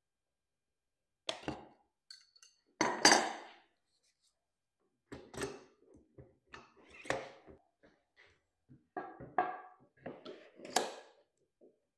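Irregular knocks and clinks of workshop parts and tools being handled and set down, about a dozen separate sounds with silence between; the loudest knock comes about three seconds in.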